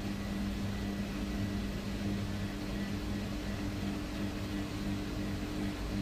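Whirlpool top-loading washing machine on its spin cycle: a steady motor hum with a low rumble underneath.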